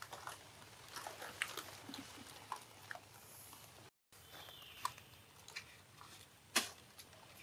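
Baby macaque chewing and handling food: faint, scattered soft clicks and smacks, with a brief cut-out of all sound about four seconds in.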